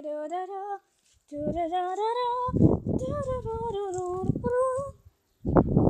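A girl humming a wordless tune in held notes that slide up and down in pitch. Two short bursts of rushing noise break in, about two and a half seconds in and again near the end.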